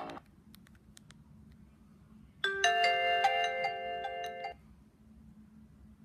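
Nokia 2700 Classic playing a short alert tone through its small speaker: a chime of several electronic notes, starting about two and a half seconds in and lasting about two seconds. A few faint key clicks come before it.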